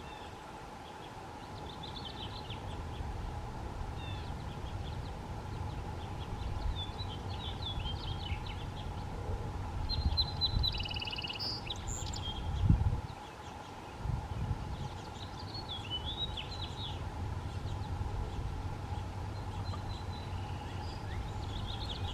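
Small songbirds chirping and singing in short phrases, over an uneven low rumble and a faint steady hum, with one louder knock about halfway through.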